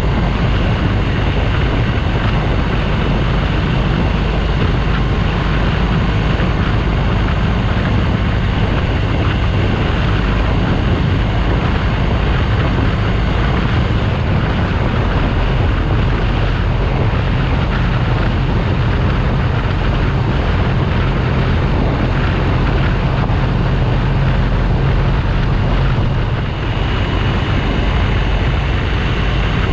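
BMW R1200GS Adventure's boxer-twin engine droning steadily while riding, with loud wind noise on the GoPro microphone.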